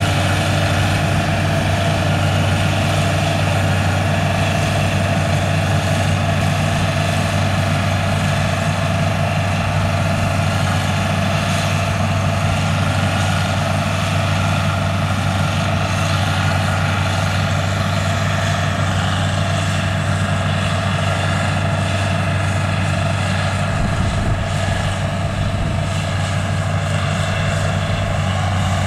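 CLAAS combine harvester harvesting ripe rice, its engine and threshing machinery running with a steady, unchanging drone.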